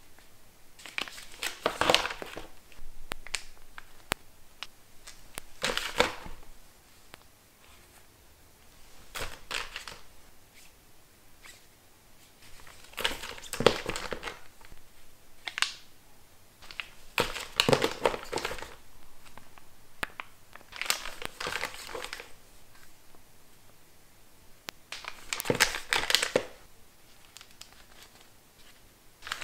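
Plastic-and-foil facial sheet mask sachets crinkling as they are handled and slid into a plastic storage bin, in short spells every few seconds with quiet between.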